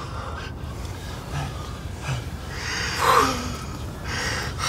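A man's heavy, uneven breathing: short gasping breaths about once a second, the loudest about three seconds in.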